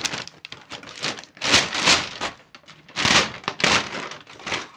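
Brown paper shopping bag rustling and crinkling as it is pulled open and handled, in several loud bursts, the biggest about a second and a half in and again about three seconds in.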